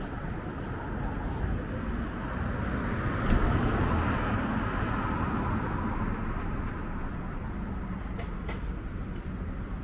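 A vehicle passing by: a steady noise that swells about three seconds in and then slowly fades.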